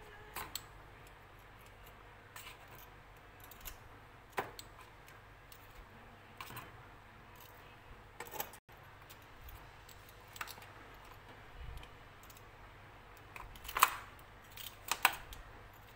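Metal tongs clicking and tapping against a disposable aluminium foil pan as fried meatballs are set into it one at a time: scattered light clicks, the loudest about 14 seconds in.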